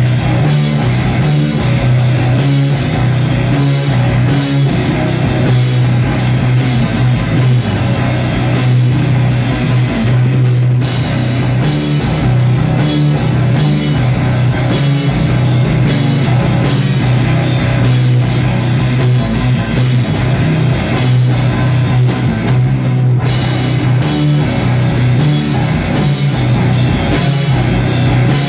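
A loud heavy rock band playing: a drum kit with rapid hits over guitar, the high end dropping out briefly twice.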